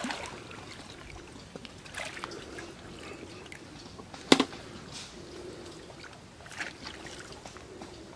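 Water trickling and sloshing around a man wading in a shallow pond as he handles a cast net's line, with one sharp knock a little over four seconds in.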